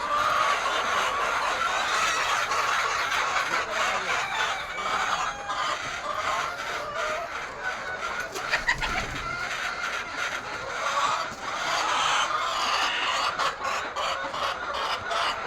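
A large flock of laying hens clucking continuously, many birds calling over one another at once.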